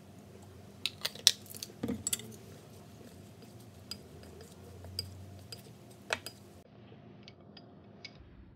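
Sharp clinks and knocks against a ceramic bowl as a salad is dressed and tossed with a wooden utensil. A cluster of loud clicks comes about a second in, then scattered lighter taps follow.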